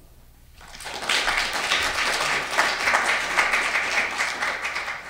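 Audience applauding, starting about a second in and beginning to die away near the end.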